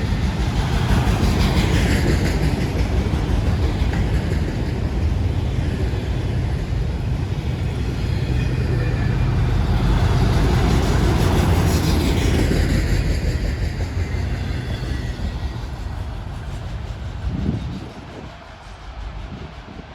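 Freight train rolling past: a steady heavy rumble of cars and wheels on the rails that dies away near the end.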